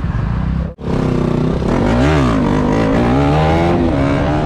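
Motorcycle engine accelerating under load. The revs climb and fall back several times as it shifts up through the gears, starting about a second in.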